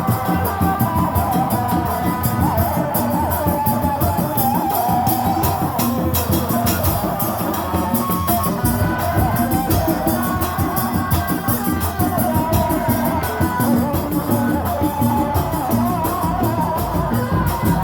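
Sundanese dog-dog drum ensemble playing loud, continuous music: dense, fast drumming with a wavering melody line over it.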